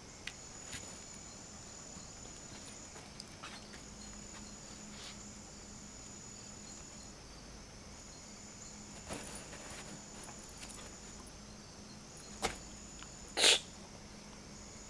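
Faint outdoor ambience with a thin, high insect drone that comes and goes in stretches of a few seconds. Near the end, a click and then one short, sharp burst of noise, the loudest sound here.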